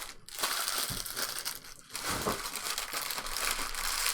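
Trading-card pack wrapper crinkling as a pack is handled and torn open, in two long stretches with a short break just before the middle.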